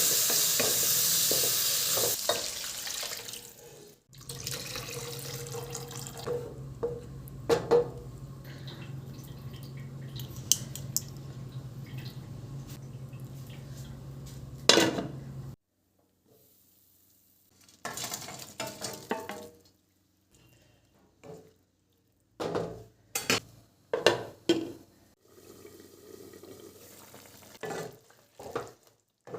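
Kitchen work: the sizzle of frying food for the first few seconds. Then a steady sound with a low hum and clinks of dishes, which cuts off suddenly about halfway through. After that come scattered clatters and clinks of dishes and pans.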